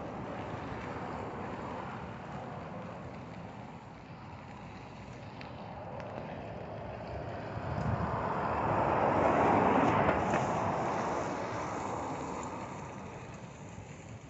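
Rushing noise of riding a bicycle on a dirt path, with wind on the phone's microphone and the tyres rolling. It swells about eight seconds in and dies down again over a few seconds.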